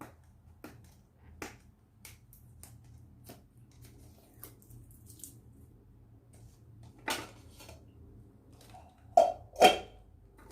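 A perfume box and bottle being handled: scattered light clicks and taps, then a louder knock about seven seconds in and two loud knocks in quick succession near the end.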